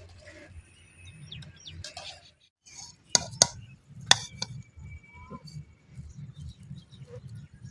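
Birds chirping, with three sharp clinks about three to four seconds in.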